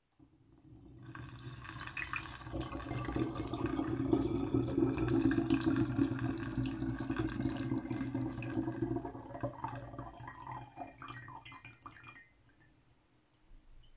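Water kefir being poured from a jar through a fine-slotted strainer lid into a plastic funnel and glass bottle: a splashing, trickling stream that builds up, then thins and stops about twelve seconds in.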